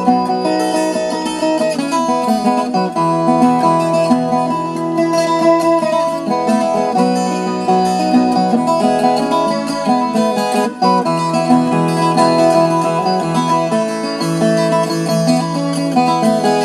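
Viola caipira, the ten-string Brazilian folk guitar, played solo as an instrumental moda de viola: a plucked melody of quickly changing notes, without singing.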